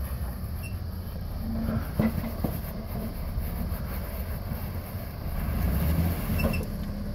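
Jeep Wrangler JK crawling over boulders at low engine revs, a steady low rumble. A couple of sharp knocks come about two seconds in, and the engine note swells briefly near six seconds as the front tyre climbs the rock.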